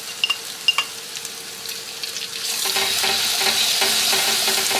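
Ground dried-chilli paste dropping into hot oil and fried spice paste in an aluminium wok, sizzling, with a few sharp clicks of the spatula against the bowl in the first second. About two and a half seconds in, the sizzle grows louder as the spatula starts stirring and scraping the paste around the wok.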